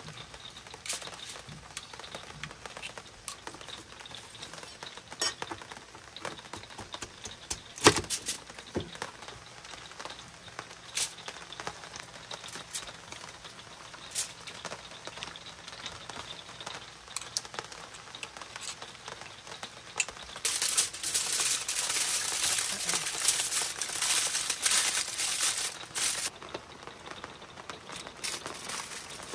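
Aluminium foil being handled and folded into a food packet: scattered taps and clicks with one sharp knock, then a stretch of loud crinkling and crumpling lasting about five seconds, about two-thirds of the way in.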